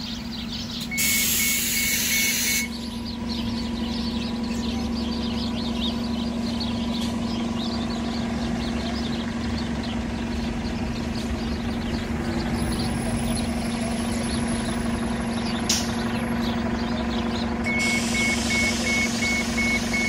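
House sparrows chirping continuously in a bare shrub over the steady hum of an idling bus engine. About a second in and again near the end, a loud hiss of air comes with a rapid beeping tone.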